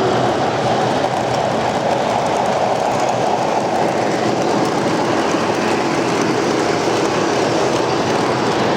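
O-gauge model trains running on the layout's track, a steady rolling rumble and clatter.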